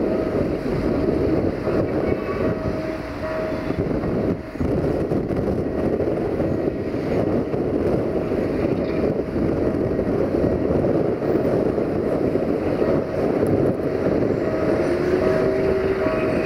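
Sulzer-engined 060-DA (LDE2100) diesel-electric locomotive working under load as it approaches at the head of a heavy loaded freight train, its engine drumming steadily over the rumble of the train. A thin high whine comes and goes above the engine noise.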